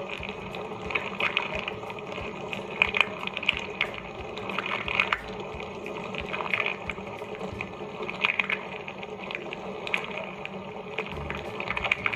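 Bosch SMS66GW01I dishwasher running a wash cycle: water sprays and splashes unevenly inside the tub over the steady hum of its pump.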